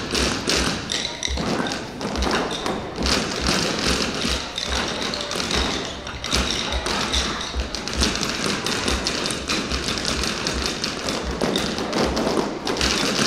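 A group of children playing a percussion piece with rhythm sticks: a dense clatter of many sticks tapping, with dull low thumps underneath.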